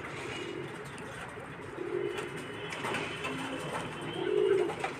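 A pigeon cooing, a few low coos about every couple of seconds with the loudest near the end, over the faint steady hiss of water heating in an aluminium kadai on a gas burner.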